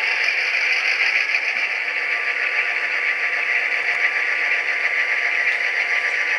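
HO-scale model locomotive's SoundTraxx Tsunami sound decoder playing a steady EMD diesel engine sound through the model's small speaker, thin, with almost no bass.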